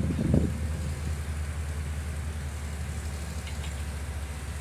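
Heavy machine engine idling with a steady low hum, with some rougher rumbling in the first half second.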